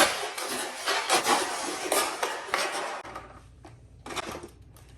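Hard plastic toy pieces rattling and clattering against each other for about three seconds, then a few lighter clicks near the end.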